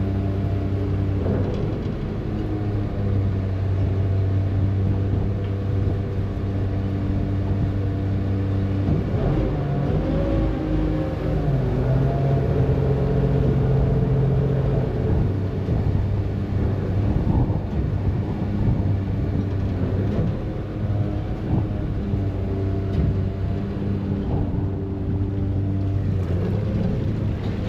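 Harbour ferry's diesel engine running under way, a steady low drone with a hum in it. About nine seconds in the note wavers and shifts, holding a higher tone for a few seconds before settling back to the steady drone.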